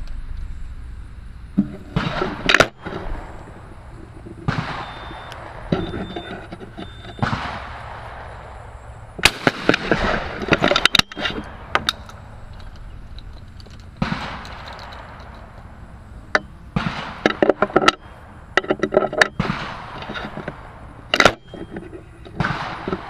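Sharp 12-gauge shotgun reports on the skeet field: a single loud shot a few seconds in, another near the end, and clusters of cracks in between, amid the knocking and rustling of the gun being handled with the camera on its barrel.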